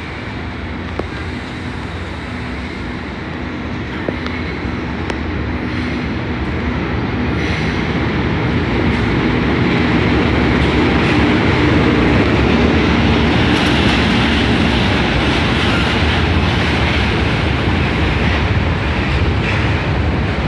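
A freight train hauled by two diesel locomotives passing close by: the locomotives' engines running as they come up and go past, then the wagons rolling by. The sound builds over the first ten seconds or so and then holds steady and loud.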